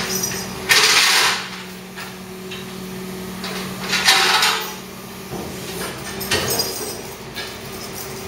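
Flatbed tow truck's engine running steadily, with two short, loud hisses about a second in and about four seconds in.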